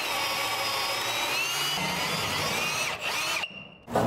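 Cordless drill boring a hole through a wooden framing plate, its motor running steadily under load. It stops about three seconds in, gives one short second burst, then falls quiet.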